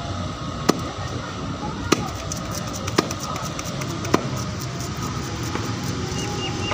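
Large curved knife chopping a river tilapia into pieces on a wooden block: four sharp chops about a second apart.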